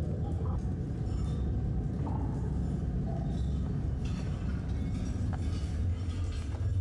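Sound effects played in a museum display: a steady low rumble, with a few faint clinks.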